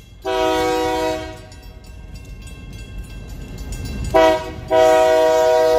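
Train's multi-tone air horn sounding for a grade crossing: one long blast near the start, then a short blast and a long blast from about four seconds in, with the train's low rumble building between them.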